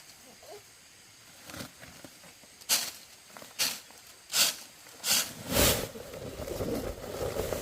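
A series of short hissing scraping strokes, about one a second and coming closer together. A rougher, steadier rustling noise joins in a little past the middle.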